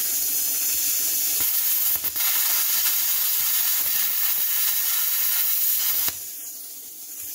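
Hynade PLC-50DP pilot-arc plasma cutter cutting 3/16-inch mild steel: a loud, steady hiss of air and arc from the torch, with a brief break about 2 seconds in. The arc cuts off suddenly about 6 seconds in, leaving a quieter, thinner hiss of the torch's post-flow air cooling it.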